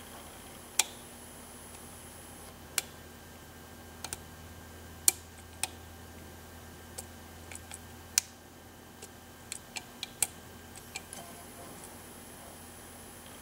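Sharp, irregular metallic clicks of lock picks working the pin stack of a 6-pin Yale cabinet lock, some single and some in quick little clusters, over a faint steady hum.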